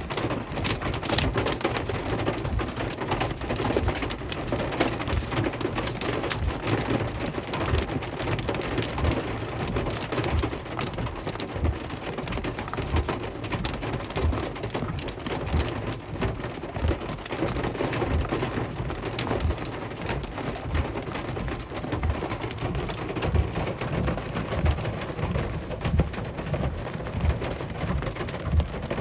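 Hailstones pelting hard surfaces in a heavy hailstorm: a dense, steady rattle of countless small clicks over a rushing noise, with irregular low thumps throughout.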